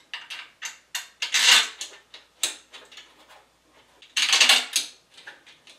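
Metal bolts and the printer's frame parts clicking, clinking and scraping as the large bolts joining the gantry to the base are fitted by hand, with two longer scraping noises, about a second and a half in and again about four seconds in.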